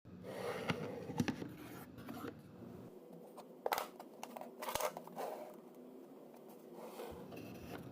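Scattered light clicks, taps and scrapes of baseboard trim being handled and fitted, with a few sharper ticks near the middle.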